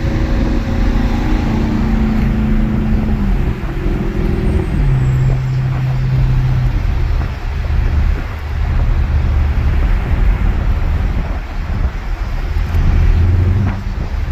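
2017 Dodge Charger R/T's 5.7-litre HEMI V8 running loud under way. Its engine note drops in steps over the first five seconds, then settles into a lower, steady drone.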